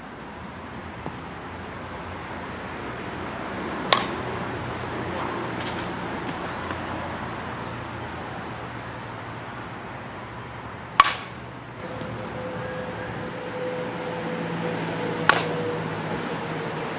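Softball bat striking a softball three times, about four, eleven and fifteen seconds in, each a sharp crack with a brief ring. A steady outdoor noise runs underneath.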